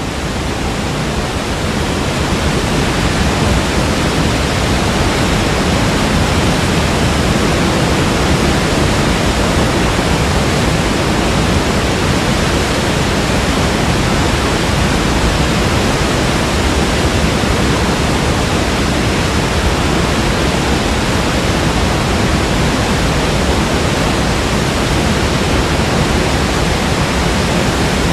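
Kaveri River in high flood, its water pouring over a waterfall in a loud, steady roar that swells slightly over the first few seconds.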